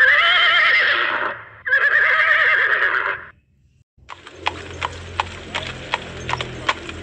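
A horse whinnying twice, the first call quavering and the second steadier. A brief pause follows, then hooves clip-clop at a walk, about three hoof-falls a second, from about four seconds in.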